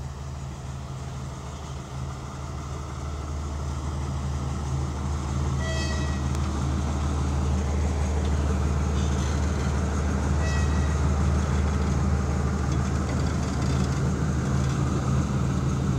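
TGM23V diesel-hydraulic shunting locomotive's diesel engine running with a steady low drone, growing louder over the first eight seconds as the locomotive draws close and passes. Two brief high squeals cut in, about six and ten and a half seconds in.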